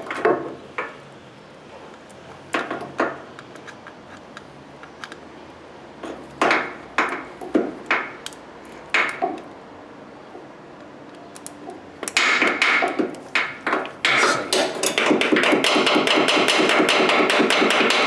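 Hammer lightly tapping the starter motor of a 2006 Ford Expedition with a no-crank fault, the trick for getting a sticking starter to turn over. A few separate taps come first, then quick, steady tapping over the last several seconds.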